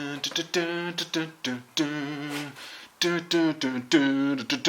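A man humming a wordless tune in a string of short held notes with brief breaks between them.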